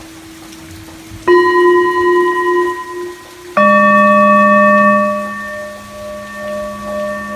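Two singing bowls struck one after the other, the first about a second in and a second, lower-pitched and louder bowl about two seconds later; each rings on in a long sustained tone with several overtones, over the fading tone of an earlier bowl.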